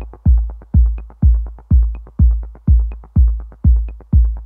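Background electronic dance music: a steady booming kick drum about twice a second, with light clicks and ticks over it.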